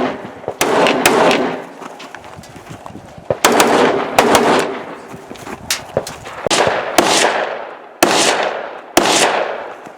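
Rifle shots fired in uneven strings, about nine in all, each trailing off in a long echo.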